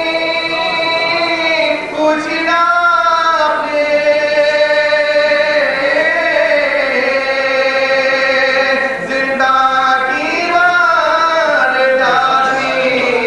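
Male voice chanting a marsiya, an Urdu elegy for the martyrs of Karbala, in long held notes that bend up and down and break for short breaths.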